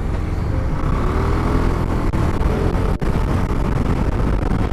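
Kymco Xciting S 400i maxi-scooter running while ridden, its single-cylinder engine under a steady low rumble of road and wind noise.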